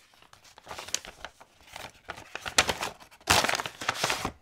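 Paper envelopes and a padded mailer being handled and shuffled: dry rustling and crinkling, loudest for about a second near the end as the mailer is gripped.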